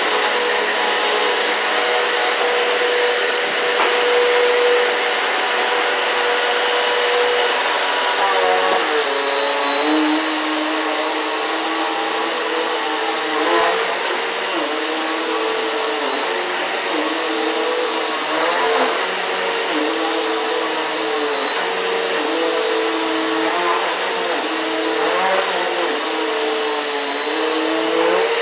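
Eureka PowerSpeed upright vacuum cleaner running with a steady high whine. About eight seconds in its pitch drops a little, then wavers up and down every couple of seconds as it is pushed back and forth over the floor.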